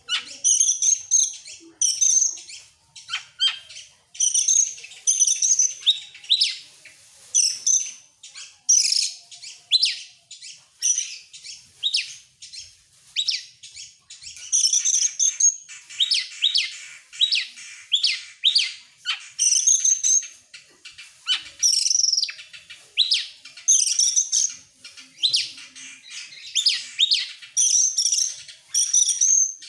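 Oriental magpie-robin (kacer) singing loudly in full, rapid-fire song: short bursts of high whistles and chattering notes, one after another about every second.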